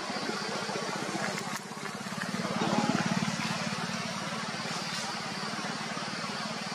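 A vehicle engine running steadily at idle, swelling louder for about a second around three seconds in.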